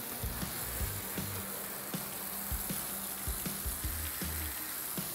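Garden hose spray nozzle shooting water against a boat hull, a steady hiss as the cleaner is rinsed off.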